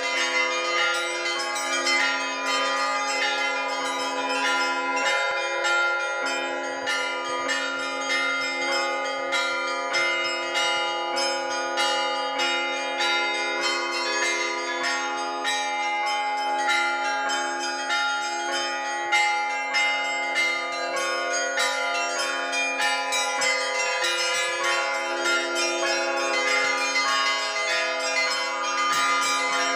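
Russian Orthodox church bells rung in a festive Easter peal from the belfry: quick, dense strikes of the smaller bells over steadier, deeper bell tones, continuous throughout.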